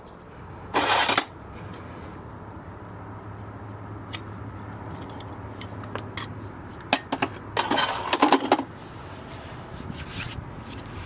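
Farrier's metal tools clinking and scraping: scattered sharp clicks, a short scraping burst about a second in, and a denser run of clinks and scrapes around eight seconds in.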